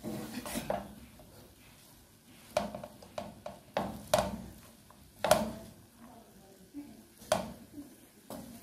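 Wooden spatula scraping and knocking against a nonstick frying pan while rice is stir-fried, in irregular clacks; the loudest comes about five seconds in.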